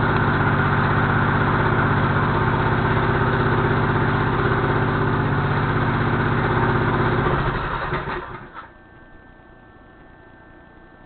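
Motorized bicycle's engine idling steadily on a repair stand, then winding down and stopping about eight seconds in, leaving only a faint hum.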